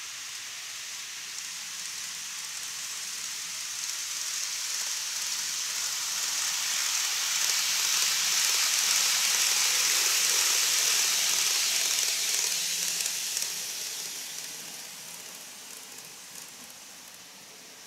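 N-scale model electric train running along viaduct track, a steady rolling hiss of wheels and motor. It grows louder as the train nears, is loudest just past the middle, and fades as it moves away.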